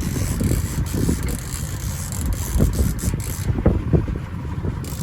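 Wind buffeting the microphone on a small boat, an irregular low rumble, with a few faint clicks.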